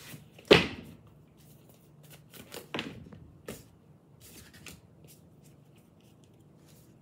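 A deck of tarot cards being handled on a tabletop: one sharp knock about half a second in, two lighter knocks around three seconds, and faint rustles of the cards between.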